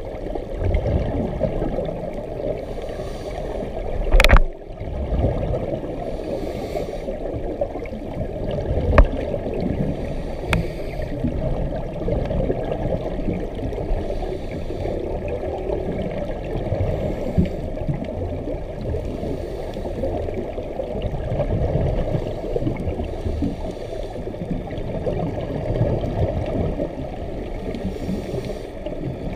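Muffled underwater rush picked up through a camera housing on a scuba dive. Bubbles gurgle out of the diver's regulator exhaust in short hissy bursts every few seconds, and a single sharp knock comes about four seconds in.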